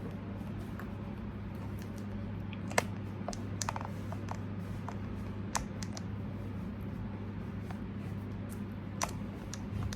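A few scattered light clicks and taps over a steady low hum, the sharpest click about three seconds in.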